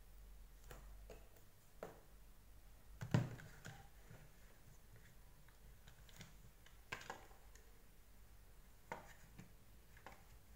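Handling noise from a plastic vacuum floor-brush housing being reassembled by hand: scattered light clicks and knocks as the motor and its wires are pressed into place, with one louder knock about three seconds in.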